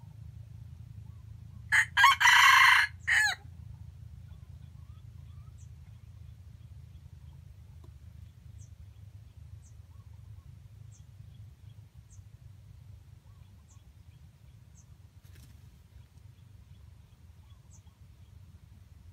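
Red junglefowl rooster crowing once, a short crow about two seconds in that ends in a brief clipped final note. A steady low rumble runs underneath.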